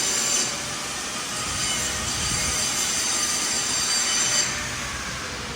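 Metalworking shop machinery running: a steady hiss with several high, thin whining tones over it, easing slightly near the end.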